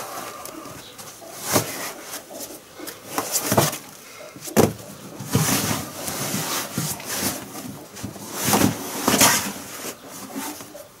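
Rubber scraping and flopping as a tractor tyre is worked by hand and its inner tube and liner are pulled out of it. Irregular rubbing scrapes come with a few sharp knocks.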